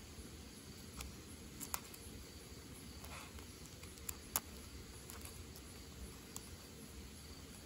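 Faint night ambience with a steady, thin insect chirring, broken by about five sharp clicks, the loudest a little under two seconds in and a little over four seconds in.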